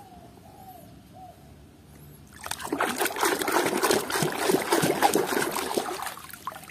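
Muddy water in a tub splashing and sloshing as a hand swishes a small toy figure through it to wash it. The splashing starts about two and a half seconds in and dies down near the end.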